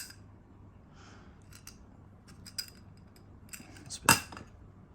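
Small metal flask cups being handled and pried at, giving scattered clicks and light metallic clinks, with one sharper click about four seconds in.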